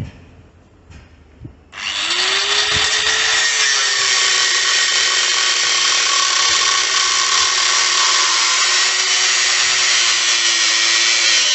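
Angle grinder with a cut-off disc starting up suddenly about two seconds in, after a few light clicks, then cutting steadily into the steel casing of a motorcycle muffler to open it and get the catalytic converter out. Its motor tone climbs as it spins up, then holds steady under the cut.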